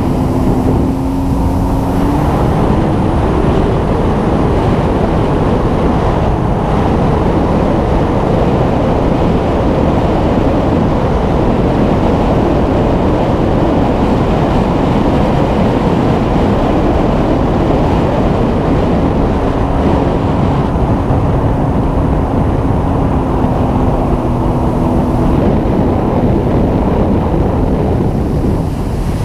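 Engine running steadily under way, mostly buried under a loud, even rush of wind and travel noise on the microphone. Its tone rises slightly about two seconds in.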